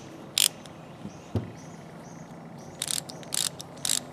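Freshly rebuilt hand ratchet wrenches swung back and forth, the pawls clicking over the gear in short quick bursts: one about half a second in, then several close together in the last second and a half.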